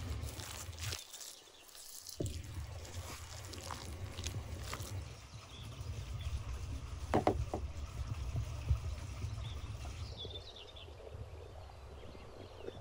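Wooden spoon stirring grated beetroot salad dressed with mayonnaise in a wooden bowl: irregular wet scrapes of the spoon against the bowl.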